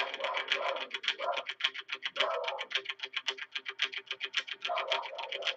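Music with a fast, even ticking pulse, about eight or nine ticks a second, and lower notes coming and going over it.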